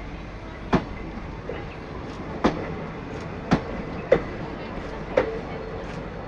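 Wheels of a passing train clacking over rail joints: five sharp clacks at uneven intervals against a steady rolling rumble.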